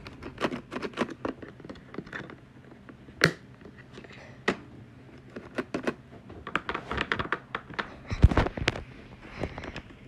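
Plastic clicking and clacking of a Playskool elephant alphabet picture toy as its red lever and buttons are pushed down and up, irregular knocks with a sharp click about three seconds in and a heavier thump about eight seconds in. The picture-changing mechanism is one the title calls broken.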